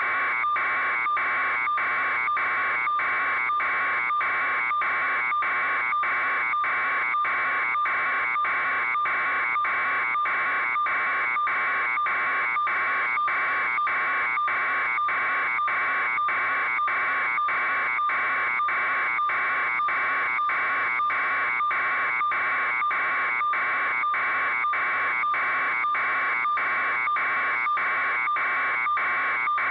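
Steady electronic buzzing tone with a strong pitch near 1 kHz, broken by brief, evenly spaced dropouts a little under twice a second.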